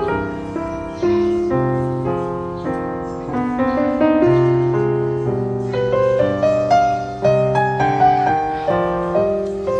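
Background piano music: a gentle melody over repeated bass notes, each note struck and fading.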